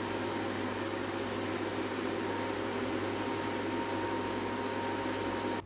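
Steady mechanical hum of a wall-mounted air-conditioning or heater fan unit, a low drone under an even hiss with a faint high tone. It cuts off suddenly near the end.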